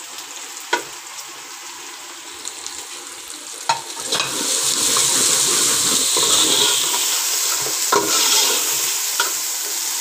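Onions and minced chicken sizzling in hot oil in a metal pot while a steel ladle stirs them, with a few sharp clinks of metal against the pot. The sizzle gets clearly louder about four seconds in.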